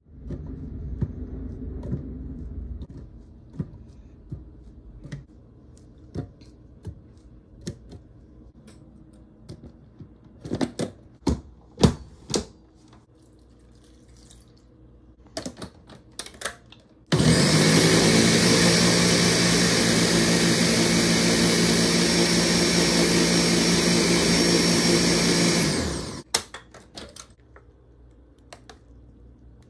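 Countertop blender puréeing banana chunks with milk. It starts abruptly, runs steadily and loudly for about nine seconds, then winds down and stops. Before it runs there is a series of short knocks and clicks.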